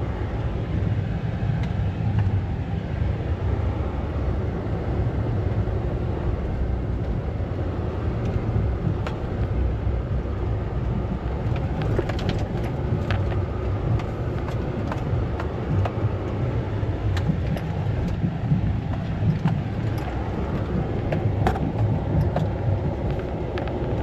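Steady low rumble of a vehicle's engine and tyres, heard from inside the cab as it creeps along over snow, with a few light clicks in the second half.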